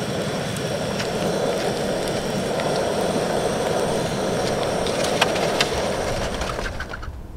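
Portable gas camp stove burner running steadily under a nonstick frying pan as corn tortillas heat, with a few light clicks of a plastic spatula against the pan. The sound fades out near the end.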